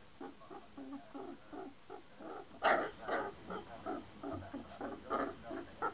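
Three-week-old Saint Bernard puppies calling in a run of short, rapid whines, with one louder cry about two and a half seconds in.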